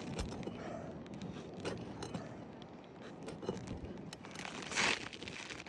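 Gritty scraping, scuffing and crackling on an old asphalt shingle roof as shoes shift about and shingles are handled, with loose granules grinding underfoot. A louder scrape comes near the end.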